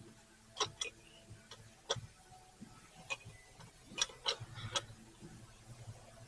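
Faint, irregular metallic clicks and taps, about seven of them, as an engine cover and its bolts are handled and set in place.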